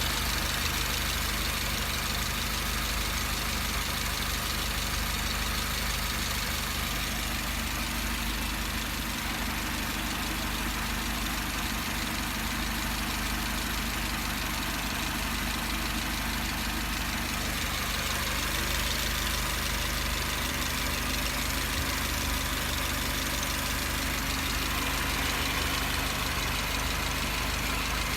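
Mercedes-Benz W245 B-Class engine running steadily, a constant hum carrying the weird noise that the owner cannot trace and that comes with some vibration, though the car is serviced and shows no fault codes.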